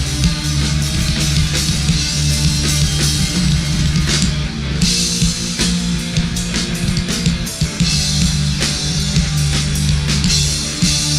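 Rock band playing an instrumental passage: drum kit with frequent cymbal and drum hits over electric guitar and sustained low bass notes.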